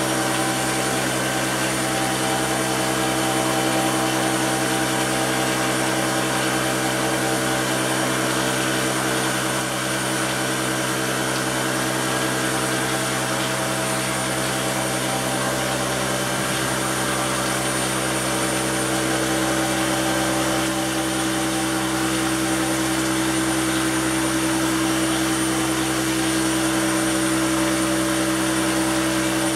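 A compact plastering machine runs steadily, pumping plaster to a spray gun that sprays it onto a wall with a hiss of compressed air. The drone holds a steady pitch with no pauses.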